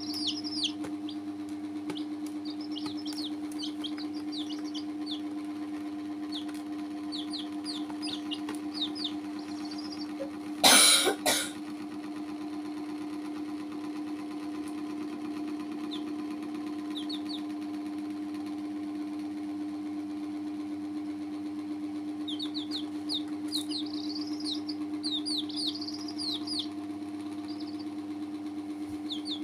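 Baby chicks peeping in quick runs of short high chirps, busy near the start and again later, over a steady low hum. About eleven seconds in comes one loud, brief noise, a knock or rustle.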